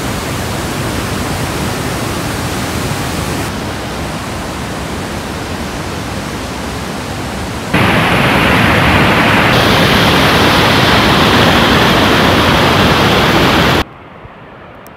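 Waterfall and rapids: whitewater rushing over rocks as a steady noise. It becomes louder about eight seconds in and drops suddenly near the end to a much quieter hiss.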